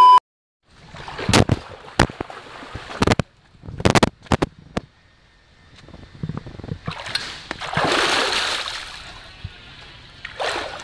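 Water splashing and sloshing around a swimmer: a run of sharp splashes in the first five seconds, then a longer rushing splash that swells about seven seconds in and fades. A steady electronic beep cuts off at the very start.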